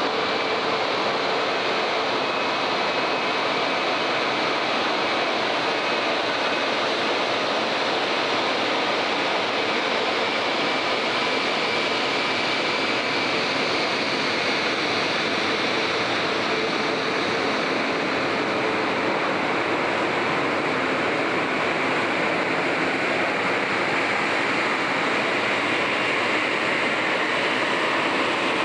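Airbus A220's Pratt & Whitney PW1500G geared turbofan engines at taxi power: a steady rushing noise with a faint high whine, growing a little brighter in the second half as the jet taxis past.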